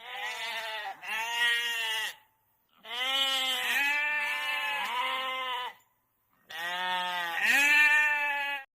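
Sheep bleating: a series of four or five bleats with short gaps between them, some long and wavering. The last one stops abruptly just before the end.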